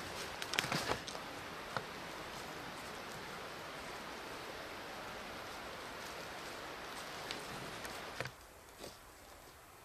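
Footsteps crunching and rustling through dry fallen leaves, a few sharp steps near the start and a couple more later, over a steady background hiss that drops away about eight seconds in.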